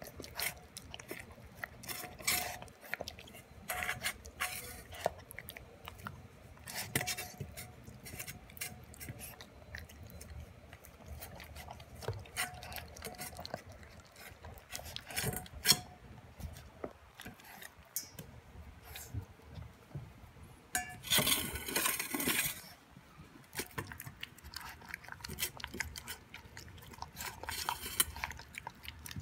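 Boston Terrier puppy eating raw food from a stainless steel bowl: irregular clinks and scrapes as its teeth and muzzle knock against the metal, mixed with chewing. About 21 seconds in there is a louder scrape lasting a second or so.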